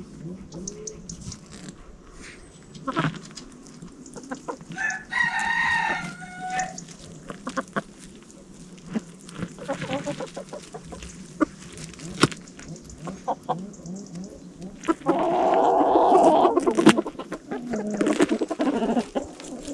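Chickens clucking, with a rooster crowing about five seconds in and another loud call near the end, among scattered short clicks and knocks.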